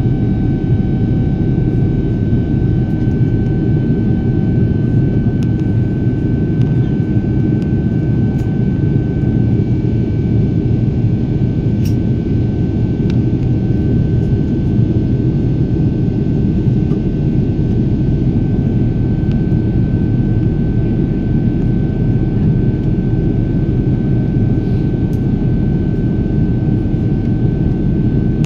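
Steady jet engine noise heard inside an airliner cabin during the climb after takeoff: an even low rumble with a thin steady whine above it.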